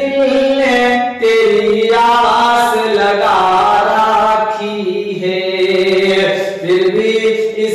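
A man singing a slow, drawn-out melodic line in held notes that step up and down in pitch, with a quavering ornament about halfway through.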